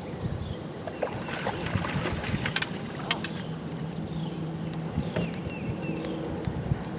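Clicks and knocks of gear being handled in a small fishing boat, over a faint steady hum.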